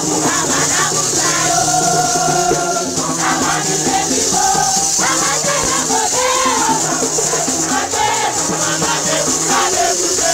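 Street procession music: many voices singing together over a constant shaker rattle, with a steady low tone held underneath.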